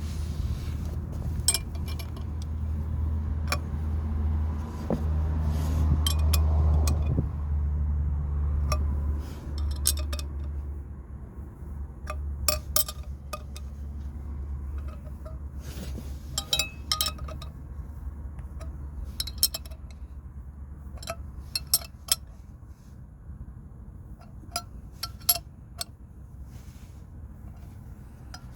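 Irregular light metallic clinks and taps of tools and metal parts being handled, often several in quick succession, over a low steady hum that fades after about ten seconds.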